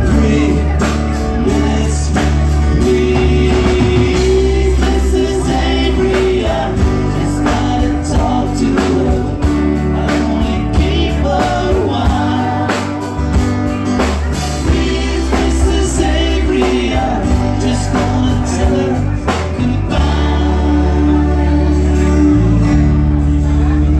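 Live band performing a song, a singer over a steady beat and bass.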